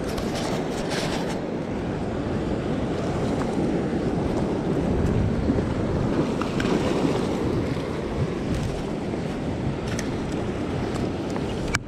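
Ocean swell surging and washing against a rock ledge, with wind buffeting the microphone. It runs as a steady rush, with a few faint clicks near the start and again near the end.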